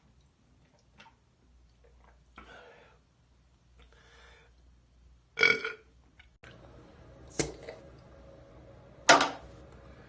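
A man belching from drinking beer, several burps in a row. The two loudest come about five and a half and nine seconds in.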